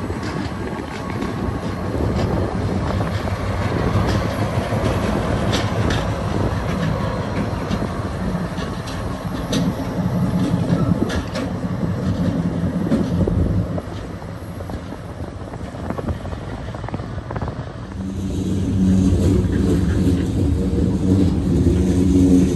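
Freight train rolling past: tank cars and hoppers rumbling, with wheel clicks over the rail joints. About eighteen seconds in, music comes in over the train and grows louder.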